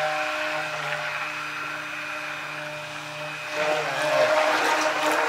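Hand-held immersion blender running in a bowl of melted oils, blending in coconut cream: a steady motor whine. About three and a half seconds in, its pitch wavers briefly and it gets louder.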